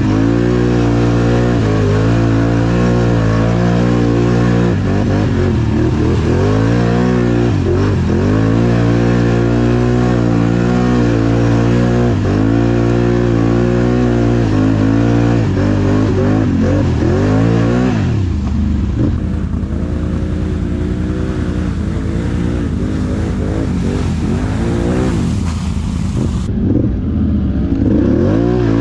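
Can-Am Outlander 850 XMR ATV's V-twin engine revving up and down over and over under throttle on a muddy trail. The note gets rougher and less even from about two-thirds of the way through.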